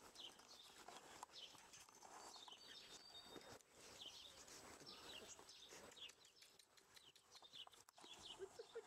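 Quiet garden ambience with small birds chirping over and over in the background, faint short falling chirps.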